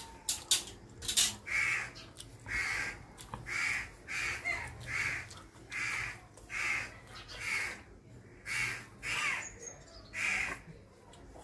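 Crow cawing over and over: about a dozen harsh caws in a steady series, a little more than one a second. A few sharp clicks come near the start.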